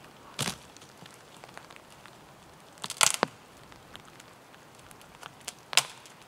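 Dead conifer branches snapping as they are broken off a tree by hand: three dry cracks, the middle one the loudest and splintering over a fraction of a second.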